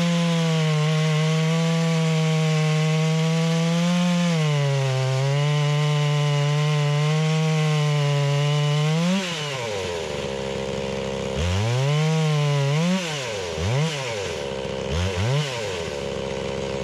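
Holzfforma G660 two-stroke chainsaw on a chainsaw mill cutting through pine at steady full throttle. About nine seconds in, the engine briefly rises and then drops back off the cut. It is then revved up and down about four times in quick succession.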